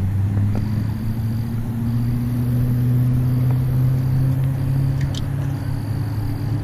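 A motor vehicle engine running steadily, its pitch slowly rising, with insects chirping in repeated short bursts.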